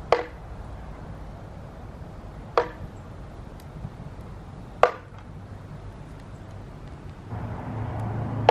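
Metal ring on a string swung against a plywood backboard around a hook, striking it three times about two and a half seconds apart, each a sharp clack with a short metallic ring.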